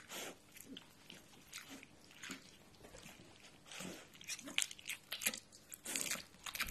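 Faint, irregular short rustles and scuffs from piglets moving about on blankets and a rug, with a few louder ones near the end.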